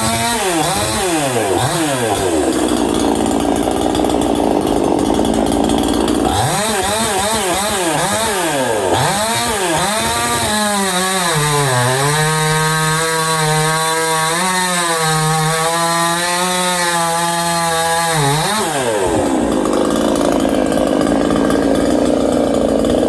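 Ported and polished Proyama PCS68 two-stroke chainsaw revved in quick blips and run hard. About halfway through, its pitch drops and holds steady for several seconds, then it climbs back to full-speed running.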